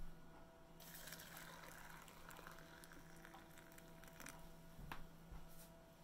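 Hot water being poured over tea leaves to steep, a faint steady filling sound that starts about a second in and stops near the end, over a low steady hum.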